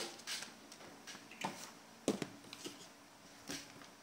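Hands handling unboxed accessories and packaging on a wooden tabletop: scattered light knocks and rustles, the sharpest knock about two seconds in.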